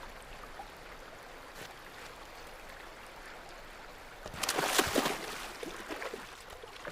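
River water running steadily, with a brief louder burst of splashing about four and a half seconds in.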